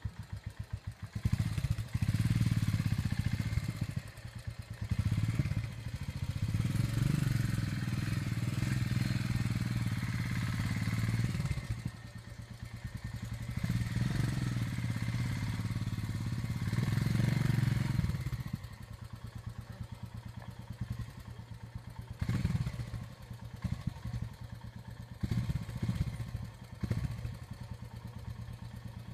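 Royal Enfield Himalayan's single-cylinder engine working on a rough trail: revved in two long bursts through most of the first eighteen seconds, then dropping to a lower idle broken by a few short blips of throttle.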